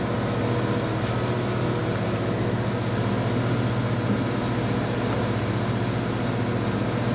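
Steady low machinery drone of a large fishing party boat, a deep even hum with a few fainter steady tones above it and a wash of noise.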